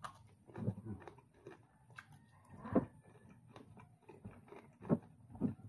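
Close-up eating sounds: a man chewing with wet mouth smacks, several louder smacks spaced irregularly through.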